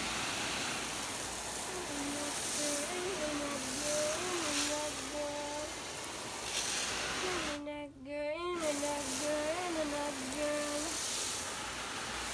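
A person humming a wordless tune, holding notes and sliding up and down between them, over a steady hiss.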